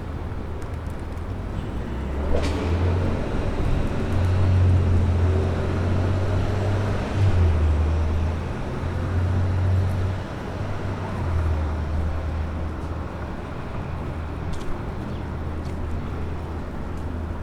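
City street traffic with a vehicle's deep engine rumble that swells about two seconds in, is loudest around the middle, then eases off. A single sharp click comes just as the rumble rises.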